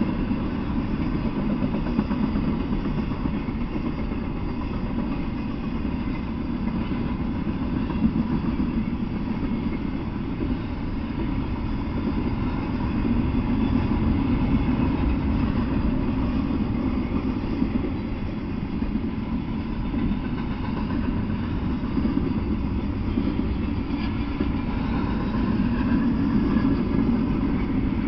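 Double-stack container freight train rolling past: a steady low rumble of steel wheels on the rails and well cars, with one sharper clack partway through.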